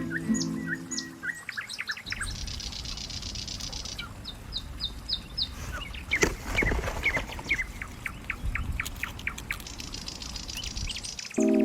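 Small birds chirping: quick runs of short, high chirps over a low steady background noise.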